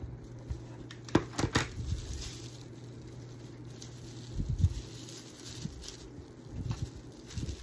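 Hula-skirt strands and craft materials being handled on a table: a cluster of sharp rustling clicks about a second in and a few soft knocks later, over a steady low hum.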